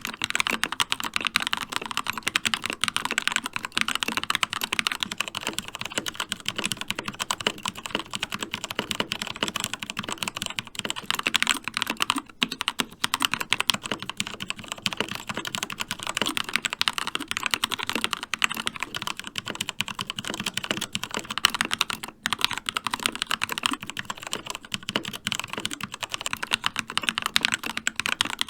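Fast, continuous typing on a Keychron mechanical keyboard with Gateron switches: a dense clatter of keystrokes with a couple of brief pauses.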